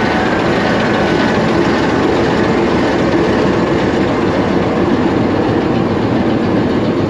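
General Electric GEU-20 diesel-electric locomotive, No. 4557, idling with a steady, dense engine rumble.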